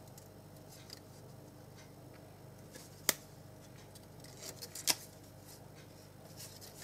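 Quiet handling of small paper-craft pieces on a tabletop, with two sharp clicks about three and five seconds in and a few fainter ticks.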